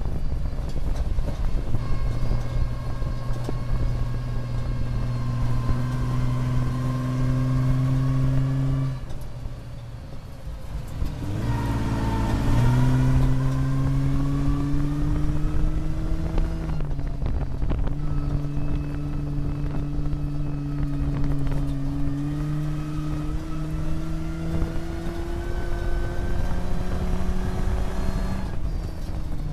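Off-road truck's engine heard from inside the cab while driving a dirt track. The engine note climbs slowly under power, then drops away and quiets about nine seconds in. Around twelve seconds it revs back up and runs on at a fairly steady pitch.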